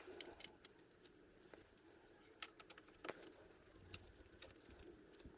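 Near silence with a few faint, scattered clicks and taps from hand work fitting a screw into the steering column.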